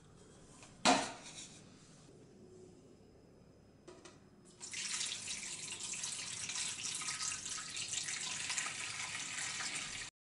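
A single knock about a second in. From about four and a half seconds, a steady hiss of running water, like a kitchen tap, cuts off suddenly near the end.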